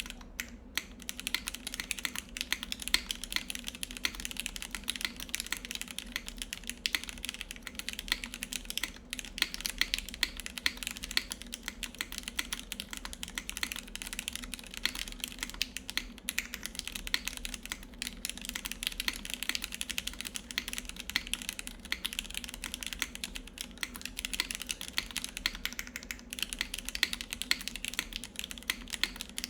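Continuous fast typing on a mechanical keyboard with lubed Gateron Yellow linear switches, Krytox 205g0-lubed clip-in Cherry stabilizers, GMK Dolch keycaps and a 4 mm ABS plate: a dense, even stream of keystrokes.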